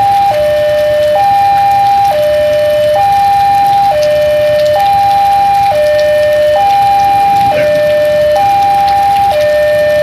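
Railway level-crossing warning alarm sounding its two-tone signal, a higher and a lower tone alternating, each held just under a second, warning of an approaching train. Steady rain hisses underneath.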